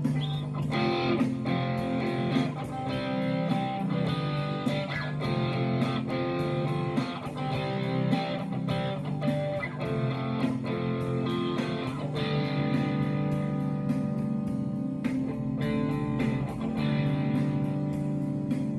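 Electric guitar played throughout, with picked chords and notes ringing on over one another.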